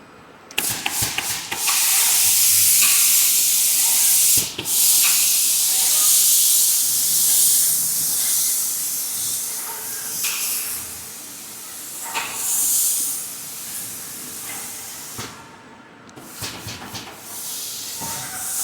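Spray gun on a six-axis painting robot hissing with compressed air. It starts about half a second in, runs in long stretches, and cuts off briefly a few times, with a few sharp clicks.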